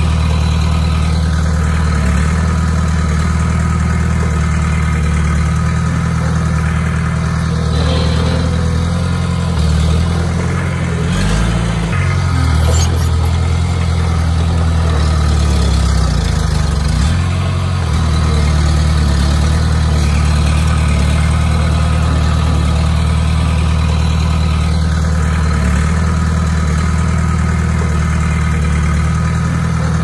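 Komatsu D20P bulldozer's diesel engine running steadily, its note shifting briefly about eleven seconds in and again near seventeen seconds.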